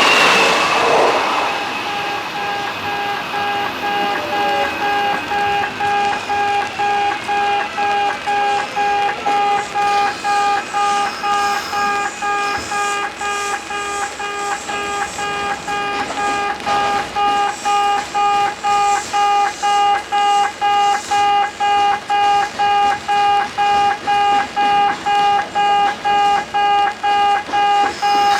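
Japanese level-crossing electronic warning alarm repeating a short, nasal "pe" beep in a steady run, instead of the usual kan-kan bell. A train runs past loudly at the start and fades within the first couple of seconds, with a falling whine over the next several seconds.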